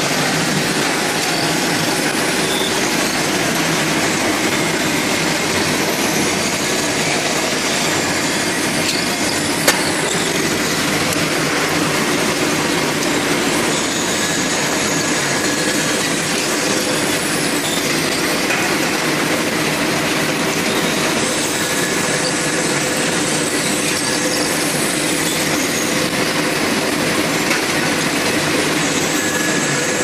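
Automatic padlock-body machining line running: a loud, steady mechanical din of motors and metal parts working, with one sharp knock about a third of the way through.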